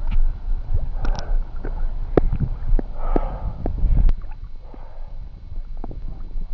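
Small waves lapping and sloshing against a camera held right at the water's surface, with sharp clicking drips and splashes and a low rumble of wind and water on the microphone; a bit calmer after about four seconds.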